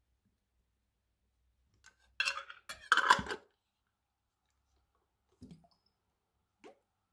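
Metal screw lid clinking and scraping against a glass jar as it is handled and screwed shut, a short burst of clatter a couple of seconds in, followed by two faint taps.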